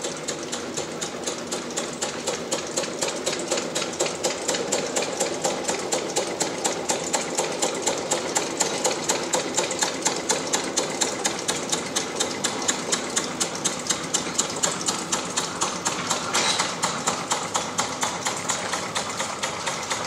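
A slow-running engine with a steady, even knock, about three beats a second. A short burst of hiss comes about sixteen seconds in.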